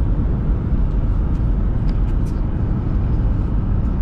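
Steady road noise inside a moving car's cabin: a low, even rumble of tyres and engine at highway speed.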